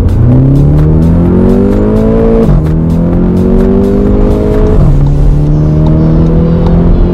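Skoda Octavia vRS 230's turbocharged four-cylinder petrol engine accelerating hard through the gears: its pitch rises, drops sharply on quick DSG upshifts about two and a half and five seconds in, and climbs again. Background music with a beat plays underneath.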